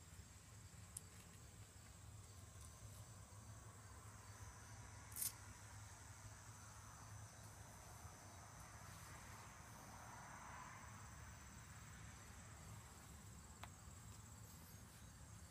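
Near silence with faint, steady high-pitched insect chirring, and a single click about five seconds in.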